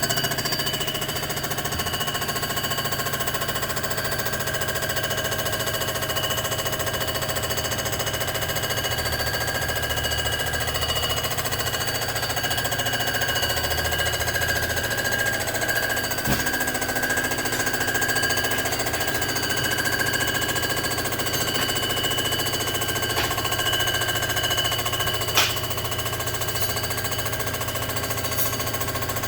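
Surfacing machine milling the deck face of a 427 Chevy big-block cylinder head, a steady running cut taking about seven thousandths off to true the warped head. Two sharp clicks cut through, one about 16 seconds in and one about 25 seconds in.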